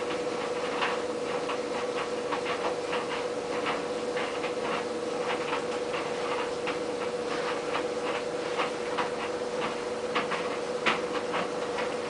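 White Knight CL432WV tumble dryer running on low heat: a steady motor hum with irregular light ticks and taps as the load of acrylics tumbles in the drum.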